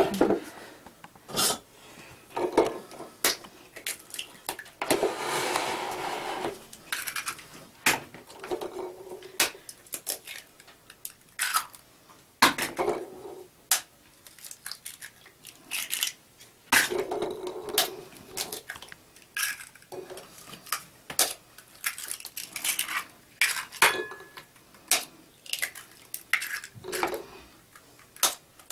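Raw eggs being cracked one after another into a plastic mixing bowl: many irregular sharp taps of shell, with crunching of the broken shells.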